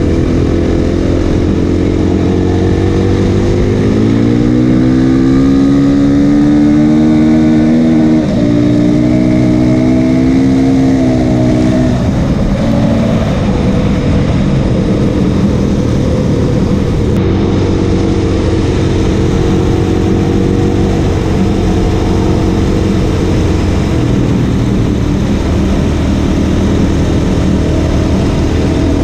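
Motorcycle engine pulling hard, its pitch climbing from about four seconds in, dropping with a gear change about eight seconds in, climbing again, then easing off around twelve seconds and running on steadily. A steady rush of noise runs underneath.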